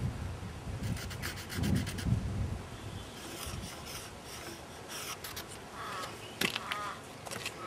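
Scratching and rubbing on the surface of a jarrah log as a line is marked along it against a metal square, in short runs of quick strokes.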